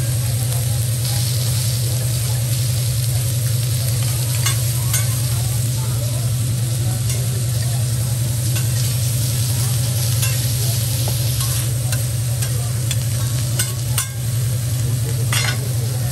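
Food sizzling and frying on a steel teppanyaki griddle, with scattered sharp clicks and scrapes of a metal spatula on the plate. A steady low hum sits underneath.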